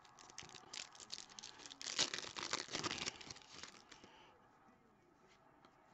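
A trading card pack's foil wrapper being torn open and crinkled by hand. It is loudest for about a second and a half from about two seconds in, then settles to a few faint crinkles and clicks as the cards are slid out.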